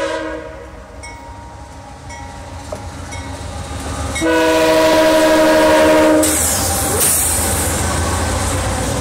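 CSX freight train's diesel locomotive horn sounding a chord: it is loud at the start, drops back, swells as the train approaches, and gives a long loud blast from about four seconds in that stops about two seconds later. Then the lead diesel locomotives rumble past close by, with the rushing noise of engines and wheels on the rails.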